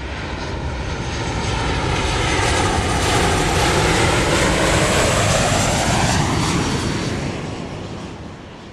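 Commercial airliner flying past: engine noise swells to a peak about halfway through and then fades, its whine dropping in pitch as it passes.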